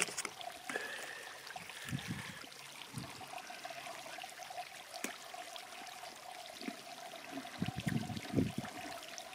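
Soft mouth and pouch-handling sounds of someone tasting apple sauce from a pouch, a few short ones with the loudest near the end, over a steady hiss and a faint constant hum.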